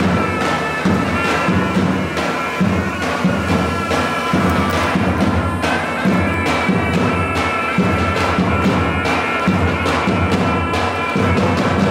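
Albanian folk wedding music: a shrill reedy wind melody over a steady beat of large double-headed lodra drums.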